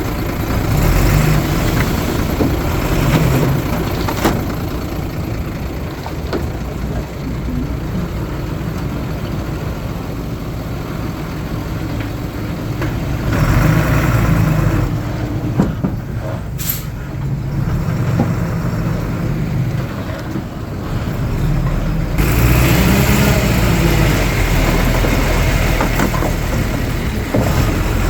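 Heavy diesel engines of earthmoving machines running, the engine note rising and falling as they rev and work under load. A brief high-pitched sound comes about two-thirds of the way through.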